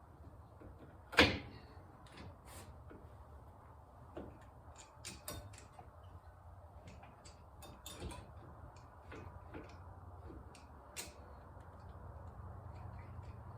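Small metal clicks and knocks of new front brake pads being fitted into the spring clips of the caliper bracket, with one sharp knock about a second in.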